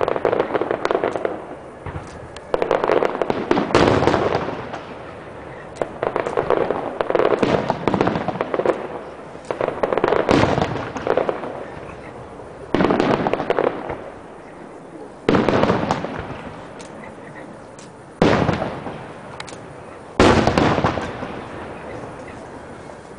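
Aerial fireworks shells bursting one after another, about every two to three seconds: each a sudden bang followed by crackling and a long rolling echo that dies away. The last burst comes a few seconds before the end and fades out.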